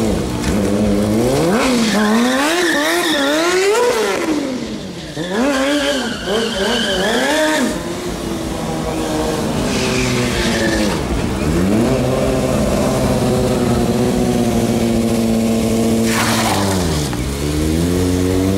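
A high-revving vehicle engine worked hard in rapid throttle blips, its pitch sweeping up and down several times a second for the first half. It then holds at a steadier high rev and drops briefly about seventeen seconds in before climbing again.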